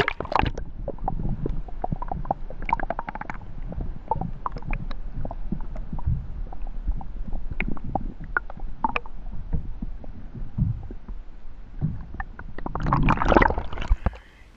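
Underwater sound picked up by a submerged action camera in seawater: a low, muffled rumble of moving water with scattered clicks and ticks. It is louder at the start as the camera plunges in, and a louder splashing rush comes about 13 seconds in as it comes back out of the water.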